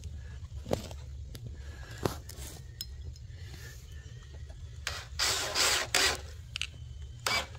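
Cordless drill driving a screw into a wooden board, one run of just over a second starting about five seconds in, then a brief second pulse near the end. Before it, only a few light clicks of handling.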